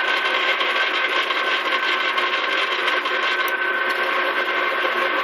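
Small metal lathe running steadily, with a constant whine from its motor and drive over a noisy hum, as it spins a soft urethane skate wheel for regrooving.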